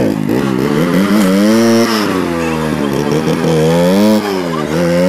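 Motorcycle engine revving hard, its pitch rising and falling again and again, while the rear wheel spins in loose dirt. The engine is straining under load because the bike is bound up in heavy packing tape and cannot pull away.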